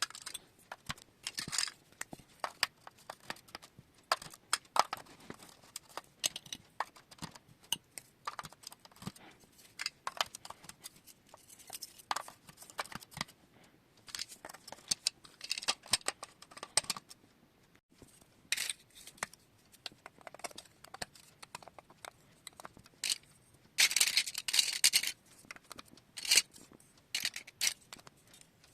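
Marbles clattering and clicking through a plastic marble run: a steady scatter of irregular sharp clicks, with a dense burst of clatter late on.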